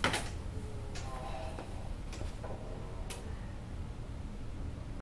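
Soft footsteps on a hard floor, a few faint clicks about a second apart, over a steady low hum.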